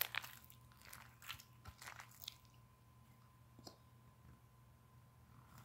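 Clear-glue slime with added activator being squeezed and pulled by hand in a plastic tub, making sticky, wet clicks and pops. The clicks come quickly for the first two seconds, then thin out to a single pop later on.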